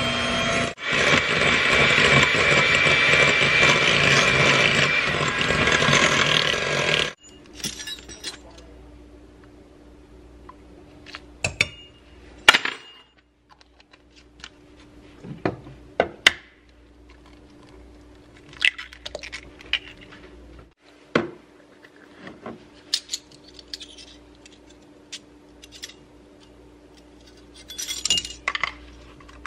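Electric hand mixer running steadily with its beaters whirring in a glass bowl of creamed butter, cutting off suddenly about seven seconds in. Then scattered clinks and taps of utensils and ingredients against the glass bowl, with a quick cluster of taps near the end as an egg is cracked into the bowl.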